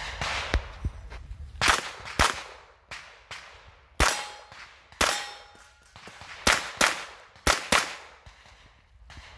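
An AR-style carbine being fired in a rapid string of about a dozen shots, several in quick pairs about half a second apart. Each shot trails off briefly.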